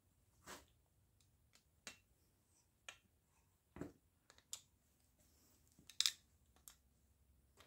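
Faint, scattered clicks and taps of a screwdriver on small 6-32 and 8-32 machine screws as they are snugged down in a model wobbler steam engine's aluminium frame, the loudest tap about six seconds in.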